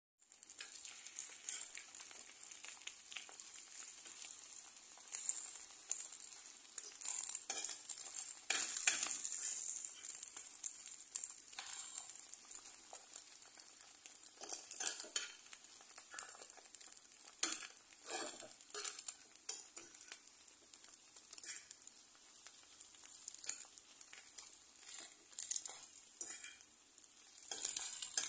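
Eggs sizzling in hot oil in a frying pan with a steady high hiss, while a utensil stirs and scrambles them with irregular scrapes against the pan.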